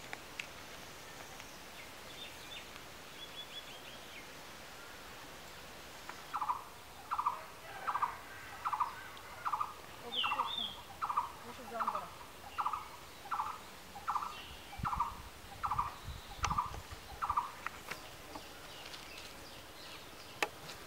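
A bird calling the same short note over and over, about fifteen times a little under a second apart, starting about six seconds in and stopping about three seconds before the end. A few faint, higher chirps of small birds come before it.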